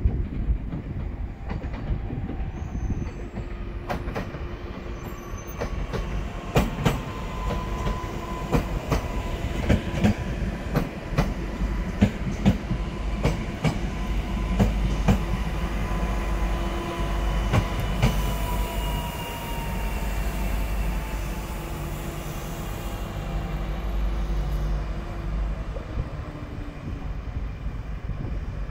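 Newag Impuls II electric multiple unit pulling in and slowing to a stop: wheels clicking over rail joints while the traction drive's whine falls in pitch as it brakes. About two-thirds through there is a hiss of air lasting a few seconds, and then the train stands with a steady low hum.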